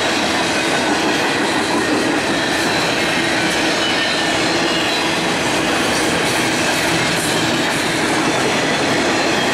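CSX double-stack intermodal freight train's container cars rolling past: a steady, loud run of steel wheels on the rails that goes on without a break.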